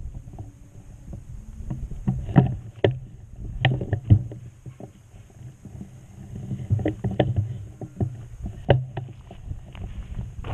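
Footsteps on snowy, icy ground, with irregular knocks and rubbing from the carried camera and a low rumble of handling noise.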